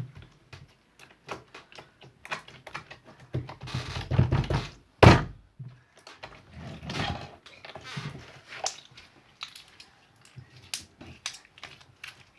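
Slime being handled and squeezed by hand: a run of short sticky clicks and squelches, with one loud thump about five seconds in.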